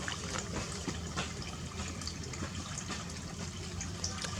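Water running and splashing, with many small splashes and drips over a steady wash of water noise.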